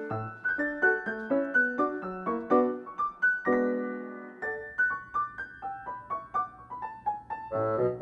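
Background music: a light, bouncy electric piano melody of quick separate notes, with a held chord about halfway through.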